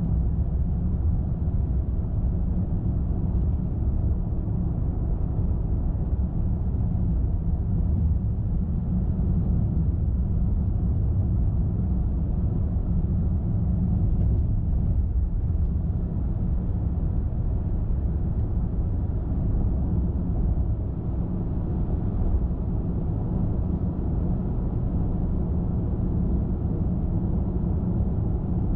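Steady low road noise of a car driving at speed, mostly tyre and engine rumble, even throughout.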